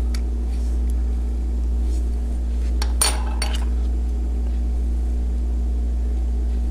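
Light clicks of a knife tip and hard plastic toy parts being pried apart, with a short cluster of sharper clicks about three seconds in, over a steady low hum.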